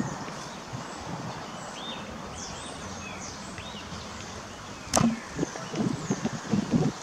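Steady outdoor background noise with small birds chirping several times, then a sharp click about five seconds in followed by a quick, irregular run of loud dull thumps close to the microphone.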